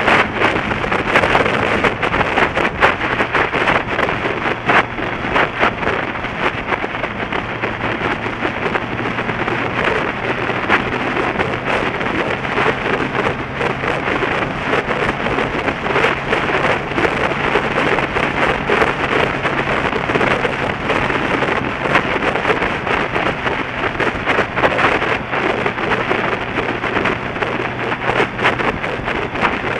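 Wind buffeting the microphone of a camera on a moving motorcycle: a loud, continuous crackling rush, with the engine's steady low drone underneath.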